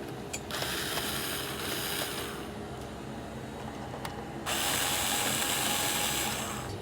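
Two spells of scraping, ratchet-like mechanical noise, each about two seconds long, from work on the casing of a PS5 console being taken apart.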